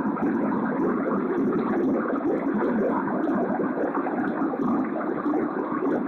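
Steady rushing noise of flowing river water, even and unbroken.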